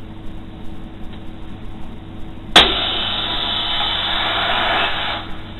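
Grundig Yacht Boy 450 world-band radio being tuned between stations: a low hiss at first, a sharp click about two and a half seconds in, then louder noisy static with faint steady whistles that drops away near the end.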